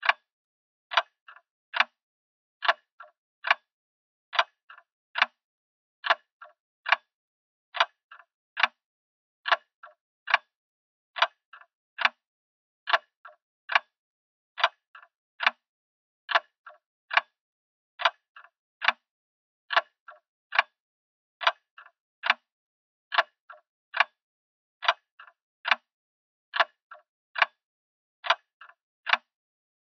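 Grandfather clock ticking steadily, a little more than one tick a second, each sharp tick followed by a fainter click or two from the escapement.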